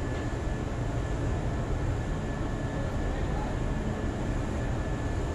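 Steady low machinery rumble with a thin, constant high whine running through it.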